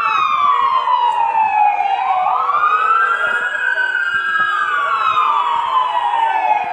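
Emergency vehicle siren wailing: the pitch slides slowly down, climbs back up about two seconds in, holds, then slides down again near the end.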